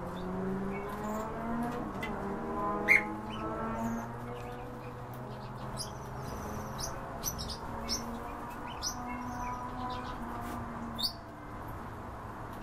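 European bee-eaters giving short chirping calls at irregular intervals, with a louder call about three seconds in and another near the end, over a low steady background.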